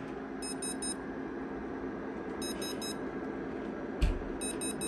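RF meter alarm beeping in quick sets of three short high beeps, one set about every two seconds, as the meter signals the pulsed 2.4 GHz RF it is picking up. One dull thump about four seconds in.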